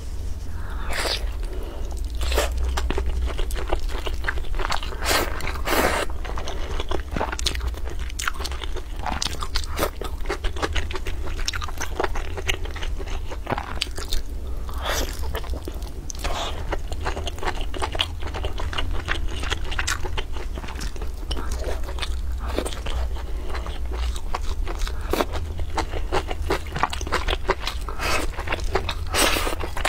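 Close-miked mouth sounds of a person biting and chewing braised pork belly over rice: many short, irregular clicks and bites following one another without a break.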